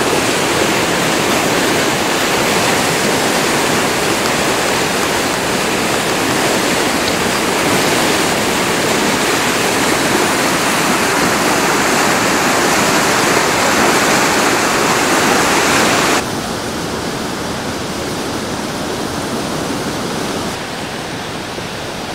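Muddy floodwater of a river in spate rushing past, a loud steady rush of water. The level drops abruptly about sixteen seconds in.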